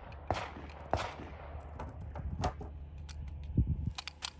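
Several pistol shots at a shooting range, single sharp cracks spaced about half a second to a second and a half apart, followed near the end by a few light clicks and knocks.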